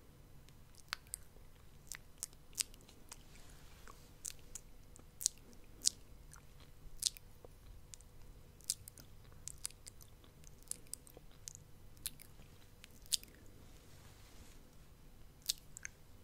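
ASMR mouth sounds close to the microphone: wet tongue and lip clicks and smacks, sharp and irregular, roughly one or two a second.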